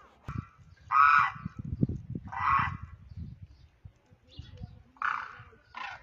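Demoiselle crane calling: four loud, rolling, trumpet-like calls, spaced one to two and a half seconds apart. Low thuds sound underneath during the first half.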